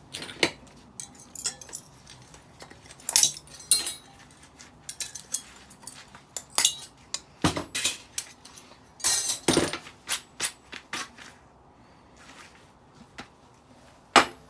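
Irregular metallic clinks, clicks and knocks as small metal parts and hand tools are handled while dismantling a stainless steel and aluminium decking light.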